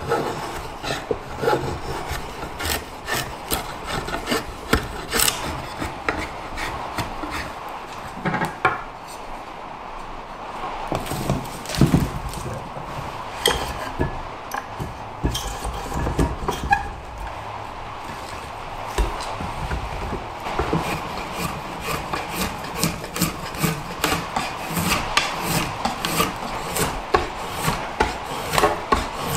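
Drawknife shaving green wood on a shaving horse: a run of repeated pulling strokes, each a short scraping slice through the wood with small knocks and clicks, easing off briefly about a third of the way through.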